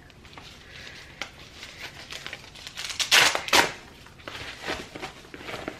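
Fabric insulated lunch tote being handled and pulled open: rustling and crinkling of the bag and its lining, with two louder rasps about three seconds in.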